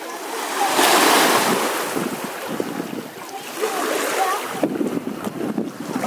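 Small sea waves lapping and washing in the shallows, with wind on the microphone; the wash swells louder about a second in. Faint voices of bathers mix in.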